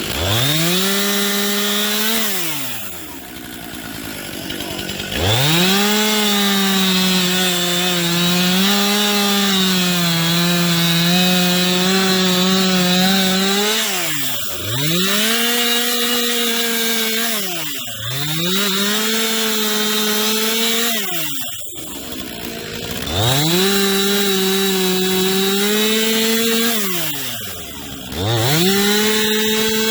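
Chainsaw revved up to full throttle and cutting through wood in about six runs of a few seconds each. The engine pitch sags slightly while the chain is in the cut and falls back toward idle between runs.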